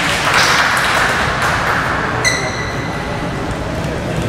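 Steady background noise of an indoor sports hall, with one high squeak starting about two seconds in and lasting about a second and a half.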